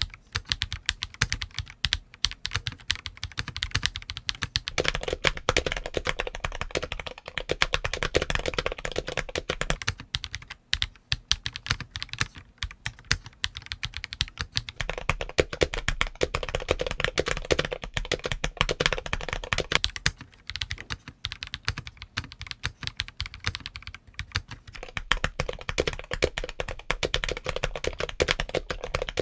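Fast, continuous typing on a James Donkey A3 75% mechanical keyboard: a dense run of key clacks, many strokes a second. Partway through, the build changes from Akko CS Matcha switches with Akko Carbon Cherry keycaps to Gateron Orange switches with MT3 Skidata ABS keycaps.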